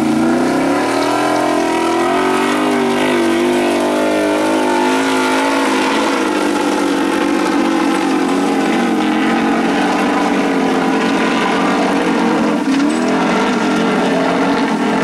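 Formula Offroad car engine running hard at high revs, its pitch wavering up and down for the first five seconds or so, then holding steadier.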